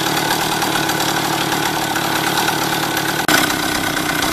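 Soviet D8 moped engine, a small single-cylinder two-stroke, idling steadily at very low revs that will not rise, which the owner suspects is a carburettor fault. The sound breaks off for an instant about three seconds in, then carries on.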